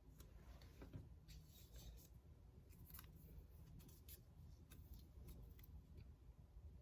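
Near silence: quiet room tone with a low hum and faint, scattered small clicks and rustles.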